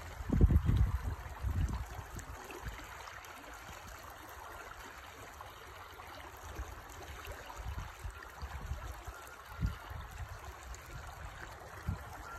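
Shallow mountain stream running over rocks, a steady rushing and splashing of water. A few low rumbling bumps hit the microphone in the first two seconds, with two more single ones near the end.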